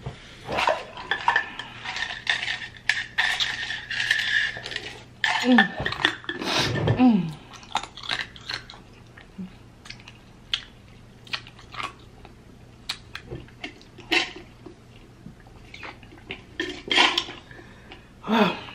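Clicks and clinks of an orange insulated metal tumbler and its lid and straw being handled, busiest in the first few seconds and again near the end. About six seconds in there are a couple of short vocal sounds without words.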